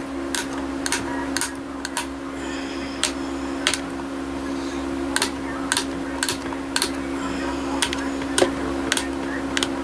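Blade chopping a log of polymer clay into slices, each cut ending in a sharp tap of the blade on the hard work surface, about two taps a second with a few short pauses.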